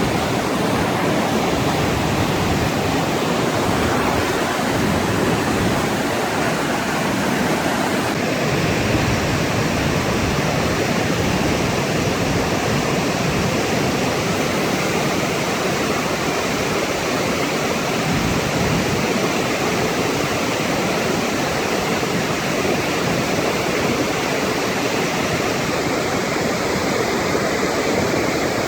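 Flash-flood water pouring over a canyon waterfall and rushing down the wash: a loud, steady rush of water.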